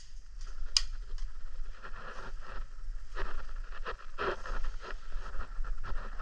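A player's footsteps and gear rustling while moving in airsoft kit: irregular scrapes, rustles and sharp clicks.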